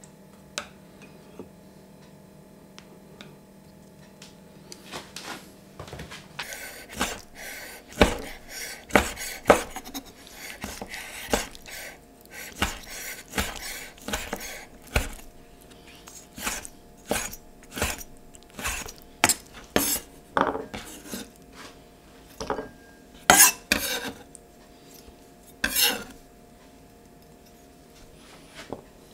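Chef's knife chopping sun-dried tomatoes on a wooden cutting board: a long run of sharp, uneven knocks of the blade on the wood, about one or two a second. It starts about five seconds in, after a few faint clicks, and stops shortly before the end.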